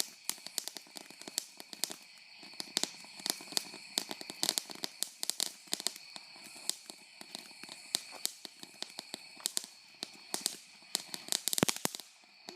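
Fireworks going off: rapid, irregular sharp cracks and crackling, with a dense flurry of louder cracks near the end.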